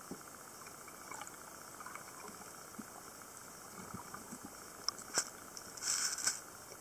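Underwater ambience heard through a waterproof camera housing: a faint steady hiss with scattered small clicks and taps. A sharp click comes about five seconds in, and a louder brief rush of hiss follows about six seconds in.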